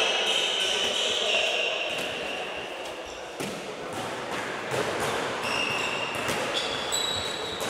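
Handball practice on a wooden sports-hall floor: the ball bouncing and being caught and thrown, with scattered knocks and short high squeaks of shoes on the parquet.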